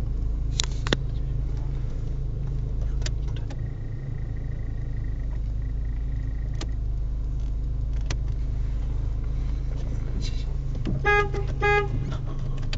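Steady low rumble of an idling car, with a few light clicks. Near the end, two short car-horn toots.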